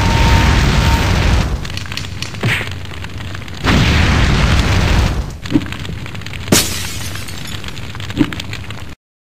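Cartoon explosion sound effects: a long, rumbling boom with crackling noise, then further blasts and crashes, including a sharp crack about six and a half seconds in. The sound cuts off suddenly near the end.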